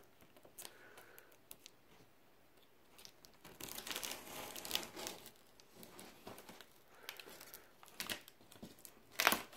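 Cardboard box and packaging being torn and cut open: quiet at first, then a stretch of tearing and crinkling a few seconds in, scattered rustles and clicks, and one sharper, louder rip near the end.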